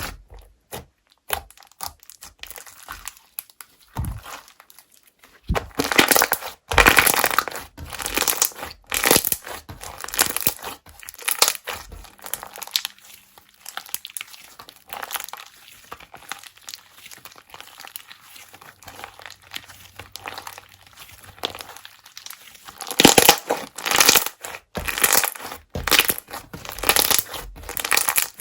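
Slime worked by hand: irregular crackling, squishing and popping, with louder bursts about a quarter of the way in and again near the end.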